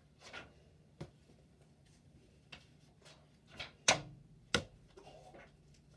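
Thrown paper cards made from notepad sheets: a series of short sharp taps and swishes, about half a dozen, with the loudest two close together about four seconds in.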